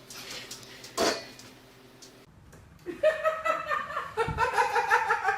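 A person laughing in quick repeated bursts, starting about three seconds in, after a short sharp sound about a second in.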